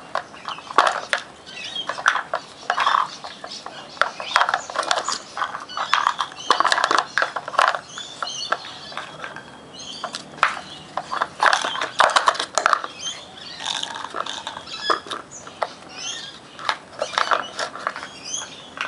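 Puppies nosing and pawing at a red plastic Nina Ottosson level 1 dog treat puzzle on brick paving: irregular clatters, knocks and scrapes of plastic on brick, coming every second or so.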